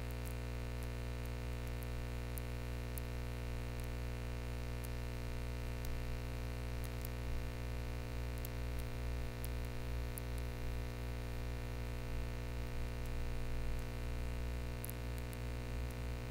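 Steady electrical hum with many overtones and a faint hiss, the background of the recording, with a few faint ticks.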